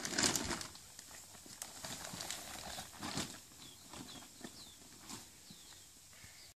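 Hands scooping loose soil mix from a plastic bag and patting and smoothing it into the tiers of a wooden planter: a loud rustle right at the start, then lighter scrapes and pats.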